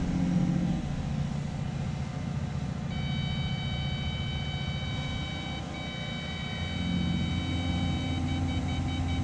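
Caterpillar 330 Next Gen excavator running, heard inside the cab, its engine and hydraulics working the stick under grade assist, with the load growing heavier about seven seconds in. About three seconds in a steady high electronic tone starts in the cab, turning into quick pulsing beeps near the end.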